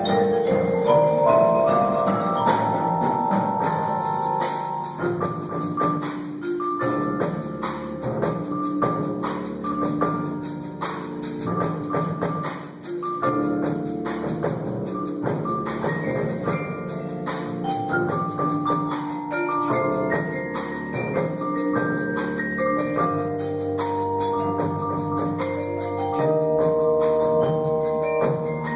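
High school percussion ensemble playing: many quick pitched notes on tuned mallet instruments, some ringing on, over a busy stream of sharp unpitched strikes.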